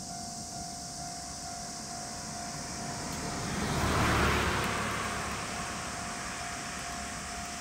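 A vehicle passing by unseen, its noise swelling to a peak about four seconds in and then fading, over a steady high drone of summer insects and a faint steady tone.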